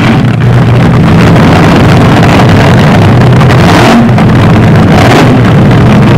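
Funny car engines running loudly at the drag strip starting line, overloading the recording, with brief surges about four and five seconds in.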